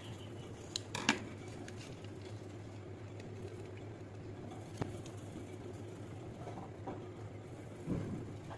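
A few light, sharp taps and clicks, about a second in, near five seconds and near the end, over a steady low hum.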